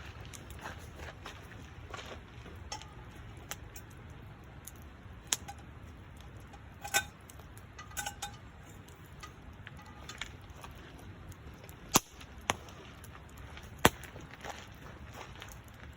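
Campfire of burning wood crackling, with sharp irregular pops over a low steady background; the loudest pops come about 7, 12 and 14 seconds in.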